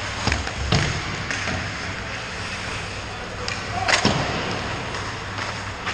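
Ice hockey play close to the goal: skates scraping on the ice with a few sharp knocks of sticks and puck, over a steady low hum. The strongest knocks come near the start and again about four seconds in.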